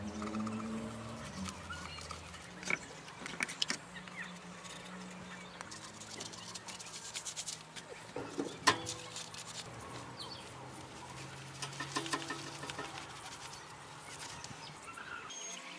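Small brush and trowel clicking and scraping against a tin paint can and the steel trowel blade while paint is applied, with one sharp knock about nine seconds in. Faint sustained low tones run underneath.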